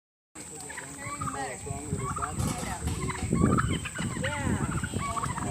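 A flock of turkeys calling, with many short overlapping gobbling calls that cut in abruptly a moment in. A faint steady high whine runs underneath.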